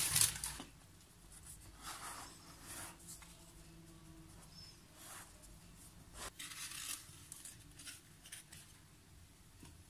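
Paper crinkling briefly at the start as baking paper comes off rolled shortcrust pastry, then faint, scattered soft rubs and rustles of hands pressing the dough into a tart tin.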